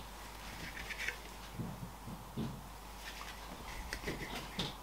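Faint rustling of shirt fabric and a few light clicks of plastic clothes hangers as shirts are handled and moved.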